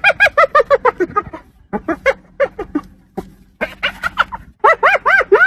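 Hyena laughing: fast runs of short, high, pitched yelps, several a second, in bouts with brief pauses, the notes swooping up and down in pitch and growing longer near the end.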